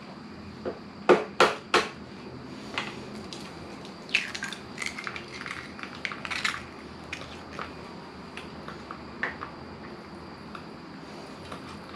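An egg knocked sharply three or four times against the rim of a small non-stick frying pan to crack it, then dropping into the hot oil and frying with scattered crackles and pops, over the steady hiss of a canister gas stove burning on a low flame.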